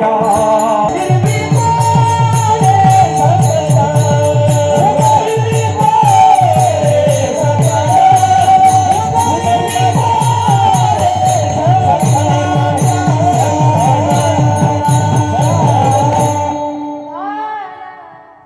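Marathi kirtan music: a woman sings a winding devotional melody over a steady harmonium drone, with fast even drum strokes and small hand cymbals keeping time. The music fades out about two seconds before the end.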